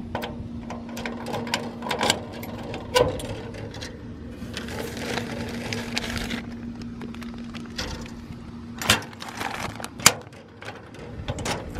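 Keys clicking in a metal cluster mailbox lock and the compartment door clanking, with the crinkling rustle of a plastic mailer package being pulled out of the box about halfway through.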